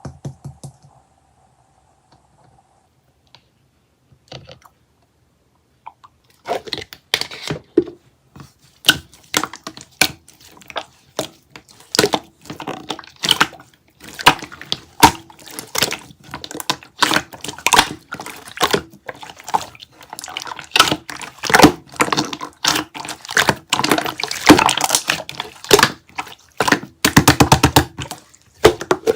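Slime being pressed and stretched close to the microphone: dense, irregular sticky clicks and crackling pops that start about six seconds in.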